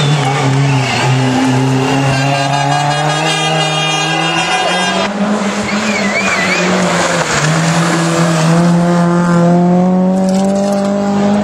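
Rally cars driven hard through forest-stage bends, their engines revving loudly. Near the end, one car's engine note climbs steadily as it accelerates away.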